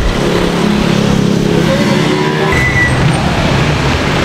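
Steady road traffic: motor vehicles running and passing close by on a busy street.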